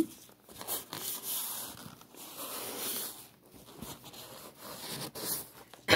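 Rubber balloon pressed and dabbed into wet acrylic paint on a canvas: a soft, uneven rubbing noise with faint clicks. A loud, sudden sneeze right at the end.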